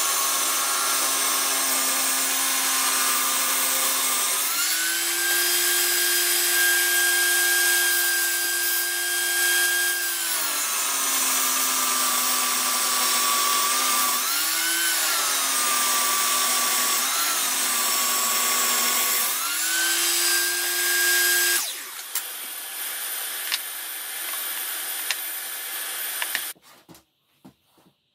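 Table saw running and ripping through a thick wooden disc, its motor tone dropping several times as the blade bogs down under load and rising again as it frees up. About 22 seconds in the saw is switched off; a steady hiss carries on for a few seconds and stops, followed by a few light taps.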